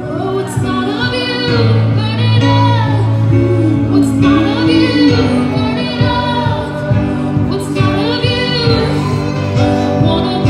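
A woman singing a worship song with a live band: long sung phrases, each held and bending in pitch, over sustained chords and bass.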